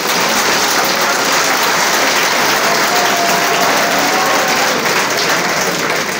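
A large audience applauding, steady dense clapping that fades out near the end.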